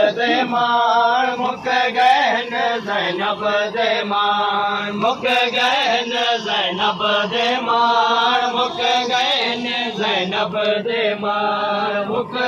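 Male chanting of a noha, a Shia mourning lament, sung in long melodic phrases into a microphone.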